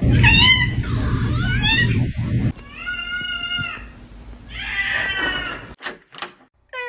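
A domestic cat meowing about five times: short calls that bend up and down, then a longer held meow about three seconds in. A low rumbling noise runs under the first two seconds, and there are a few clicks near the end.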